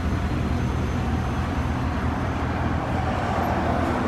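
A van's engine idling with a steady low rumble.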